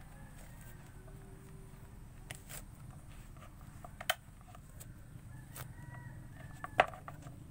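Hands peeling the pith from a pomelo, with a few sharp clicks, the loudest near the end, over a steady low hum.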